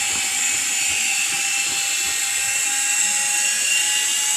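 Electric motor and spinning rotor of a battery-powered toy RC helicopter giving a steady high whine, like a small drill. The rotor is at speed but the helicopter stays on the ground, tilting to one side instead of lifting off.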